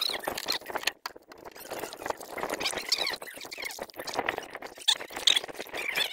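Raw mutton pieces being washed by hand in an aluminium pot: water poured in from a plastic bottle at the start, then irregular wet rubbing and sloshing as hands work the meat in the water.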